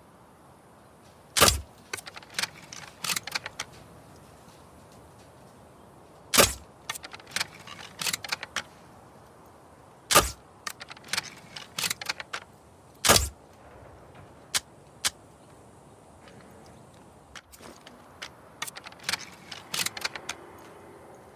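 Crossbow sounds: four sharp, loud snaps a few seconds apart, each followed by a quick run of lighter mechanical clicks, and only clicks in the last few seconds.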